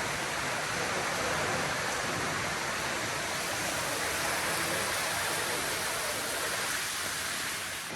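Storm water pouring down through the roof of a railway tunnel and splashing on the floor, a steady, even rush.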